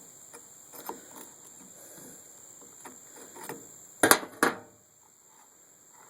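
Chainsaw side cover being worked onto the bar studs by hand: light clicks and rattles, then two sharp knocks about half a second apart some four seconds in.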